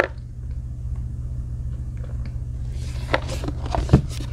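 Display box being handled on a table top: a few soft knocks and scrapes, the sharpest about four seconds in, over a steady low hum.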